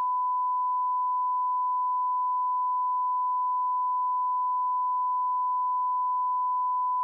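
A steady 1 kHz sine test tone, one unbroken pitch at a constant level, the kind of tone a broadcast puts out when regular programming is cut off.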